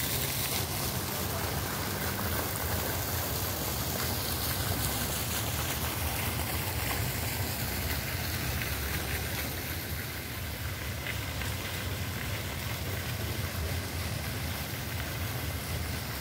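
Fountain jet splashing into its stone basin: a steady rush of falling water, with a low rumble underneath.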